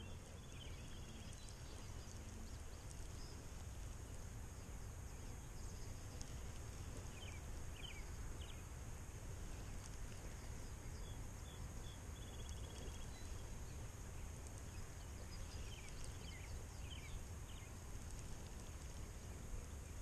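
Quiet open-air pond ambience: a low steady rumble of wind on the microphone under a faint steady high hiss, with a few short high bird chirps now and then.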